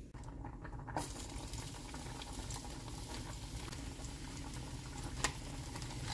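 Pot of pasta water bubbling at a boil for about a second, then a steady crackling sizzle of minced garlic frying in oil in a frying pan, with a sharper click about five seconds in.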